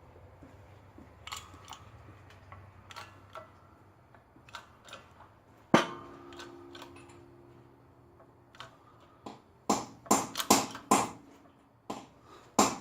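Metal-on-metal knocks and clicks from pressing a carrier bearing onto a Camaro 8.5 differential carrier: scattered light clicks, one sharp clank about six seconds in that rings on for a few seconds, then a quick run of loud knocks near the end. The bearing is going on crooked (cocking) rather than driving straight down.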